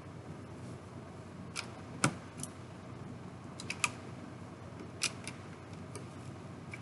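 Plastic Lego bricks clicking as they are handled and pressed onto a model: a scatter of sharp clicks, the loudest about two seconds in, a quick run of three or four just before four seconds, and a few more around five to six seconds.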